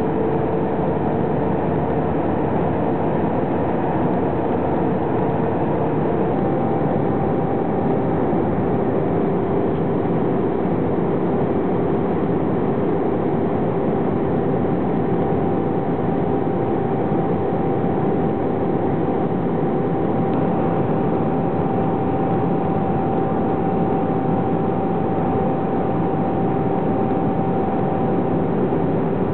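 Airliner cabin noise in flight: the steady rush of airflow and jet engines with a constant hum. About six seconds in the hum shifts slightly lower and a higher steady tone joins it.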